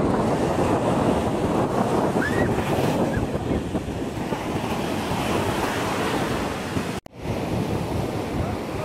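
Ocean surf breaking and washing up a sand beach, with wind buffeting the microphone. The sound drops out for an instant about seven seconds in.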